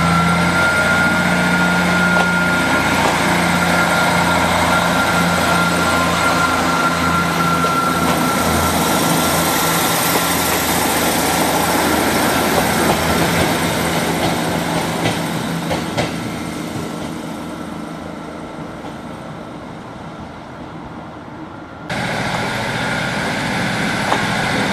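A Class 158 diesel multiple unit runs past with engine drone, a steady whine and wheel-on-rail noise, fading away as it draws off down the line. About 22 seconds in, the sound cuts abruptly to a Class 150 diesel multiple unit approaching.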